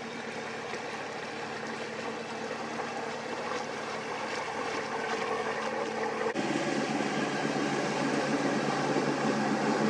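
River motor cruiser's engine running steadily as the boat passes, growing louder. About six seconds in, the engine note changes abruptly to a stronger, lower one.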